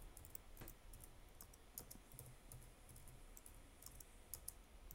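Faint typing on a computer keyboard: irregular key clicks as words are typed in.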